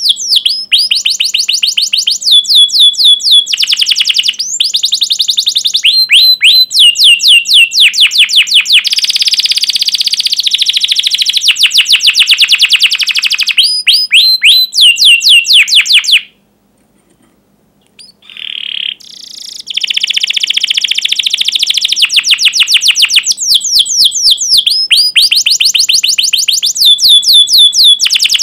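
Domestic canary singing at length: runs of rapid repeated downward-sweeping chirps, the 'cuit cuit' notes, alternating with dense rolling trills. There is one short break about two-thirds of the way through, and then the song resumes.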